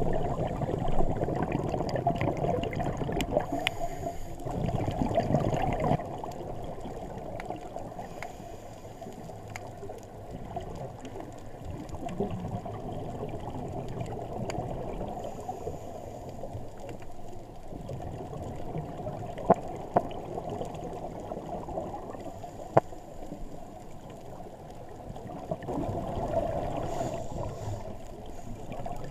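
Muffled underwater sound through a camera housing: a scuba diver's exhaled bubbles gurgling from the regulator, louder for the first few seconds and again near the end. Three sharp clicks come about two-thirds of the way through.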